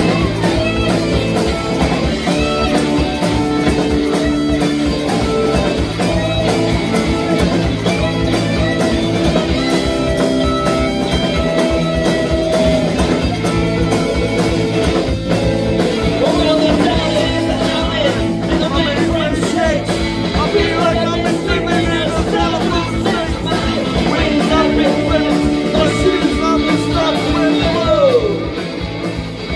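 Live rock band playing: electric guitar, bass and drums with a singer. The music dips in level near the end.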